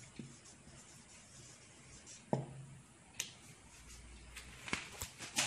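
Felt-tip marker writing on paper: faint strokes with several sharp clicks and taps, the loudest about two seconds in and near the end.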